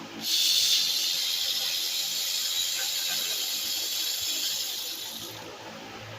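A steady rushing hiss while a tight engine-bracket bolt is being taken out. It starts sharply and fades out near the end.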